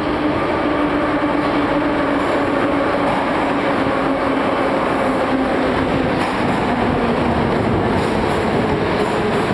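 Moscow Metro train running through the station: a loud, steady rumble of wheels on rails with a motor whine that falls slowly in pitch as the train slows.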